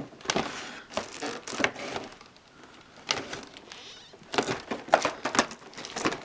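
Plastic packaging crackling and clicking in irregular bursts as statue parts are pulled at in their tray, held fast by fine wire ties.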